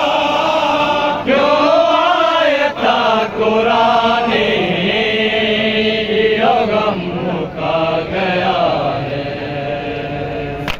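Group of men chanting a nauha, a Shia mourning lament, in unison with long, wavering held notes.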